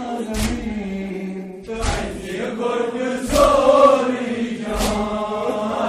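Male voices chanting a noha, a Shia mourning elegy, with a lead voice on a microphone and a group responding. A sharp slap lands about every one and a half seconds in time with the chant: congregational chest-beating (matam).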